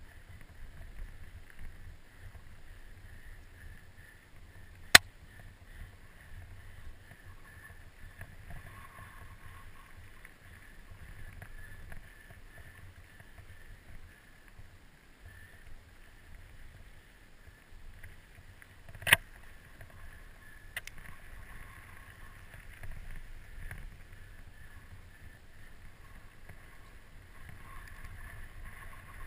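Mountain bike riding a dry dirt singletrack, recorded on a bike-mounted action camera: steady tyre, trail and rattle noise with low wind rumble. Two sharp knocks stand out, one about five seconds in and another around nineteen seconds.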